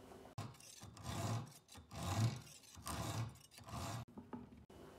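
Rhythmic scraping and rubbing on the rusty steel shaft of an old screwdriver held in a bench vise, in about five strokes close to a second apart.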